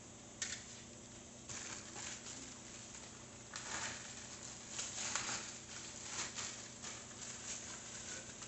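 Plastic packaging rustling and crinkling in irregular bursts as it is handled, with a single sharp click about half a second in.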